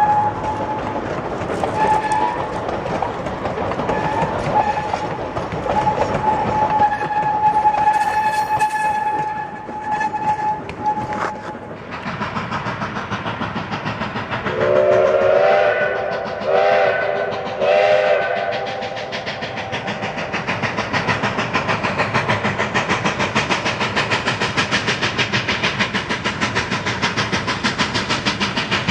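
Narrow-gauge steam train rolling with a steady high squeal from its wheels. Partway through, a steam locomotive's chime whistle blows a few short blasts, followed by the steady beat of its exhaust as it approaches.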